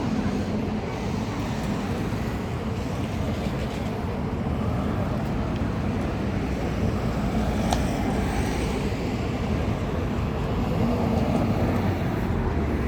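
Steady outdoor road-traffic noise: an even, low rumble of passing vehicles, with one faint click about eight seconds in.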